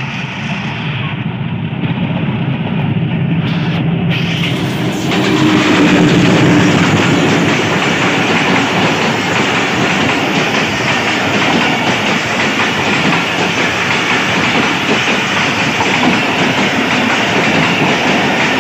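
Diesel locomotive passing close by with its engine running, getting louder to a peak about six seconds in, followed by a long train of passenger coaches rolling past steadily, their wheels clattering over the rails.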